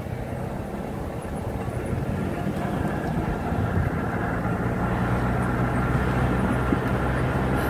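Small car driving slowly on a gravel road, heard through an open car window: a steady engine hum under the noise of tyres rolling over loose stones. It gets a little louder about two seconds in.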